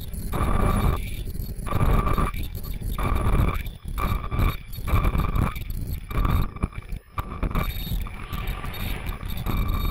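Shower cap making machine running: a steady mechanical whine with a low rumbling noise that swells and drops about once a second.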